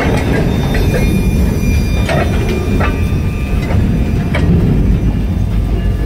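Slow freight train's cars rolling away: a steady low rumble with a few scattered clicks and clunks of wheels over the rail, and a faint thin wheel squeal in the middle.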